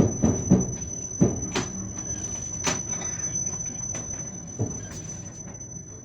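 Passenger train wheels knocking over rail joints, the clickety-clack of a moving carriage. There is a quick run of knocks in the first second and a half, then only single knocks further apart, over a steady rolling rumble with a thin high whine.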